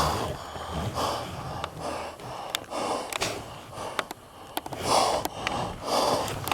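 A man breathing heavily close to the microphone, a run of loud in-and-out breaths a second or so apart, with scattered sharp clicks and rustles between them.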